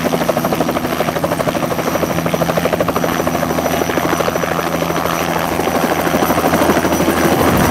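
Bell 206 JetRanger helicopter running at full rotor speed close by: a rapid, even chop from its two-bladed main rotor over a steady turbine hum, growing slightly louder near the end.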